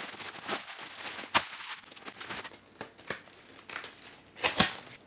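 Plastic mailer bag and plastic wrap crinkling and tearing as a taped package is unwrapped by hand, with a few sharp crackles, the loudest near the end.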